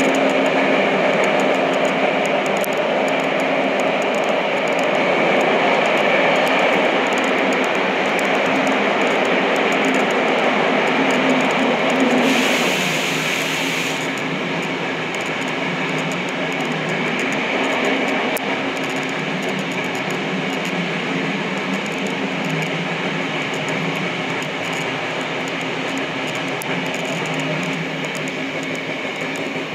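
Tokyo Metro Namboku Line subway train running through a tunnel, heard from inside the car: steady rumbling running noise with an even hum. A brief hiss comes about twelve seconds in, and the noise eases slightly afterwards.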